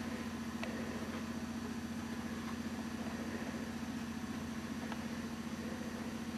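A steady low mechanical hum, like a small engine running, with two or three faint clicks.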